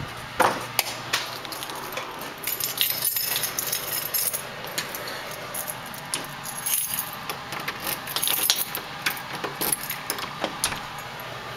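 Irregular metallic clicks and jingling from door hardware being handled: a brushed-metal deadbolt and lever handle rattling and clicking under a hand.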